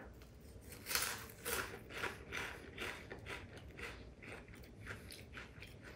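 Wasabi Cheetos being chewed, an irregular run of faint crisp crunches.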